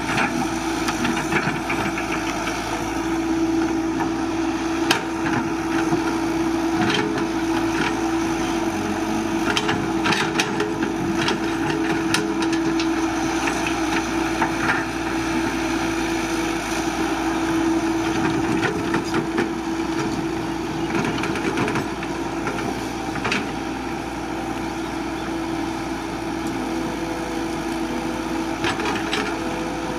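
Caterpillar 312BL excavator running steadily with a constant engine tone, while many short, sharp cracks and snaps of breaking wood and crushed brush sound at irregular moments as it clears land.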